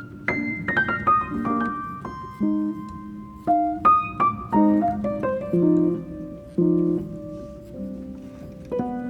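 Background piano music: a gentle melody of single struck notes over lower chords.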